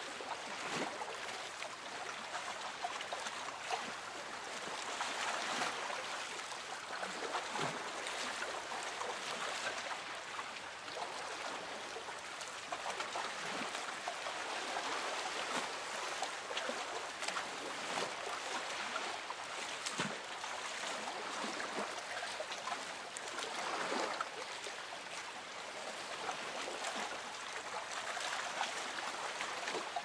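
Ocean water lapping and splashing close by: a steady wash of moving water broken by many small splashes.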